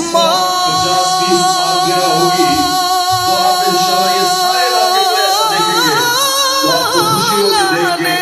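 A voice singing an Urdu naat, drawing out one long held note and then ornamenting it with wavering turns of pitch near the end.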